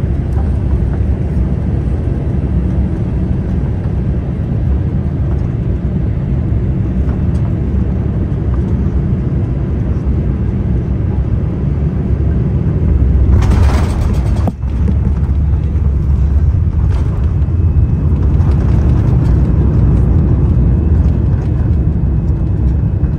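Boeing 787-8 jet engines and airflow heard from inside the cabin, a steady low rumble through final approach and landing. About thirteen seconds in a brief, louder rush of noise marks the touchdown, and the rumble then carries on with the engines in reverse thrust on the rollout.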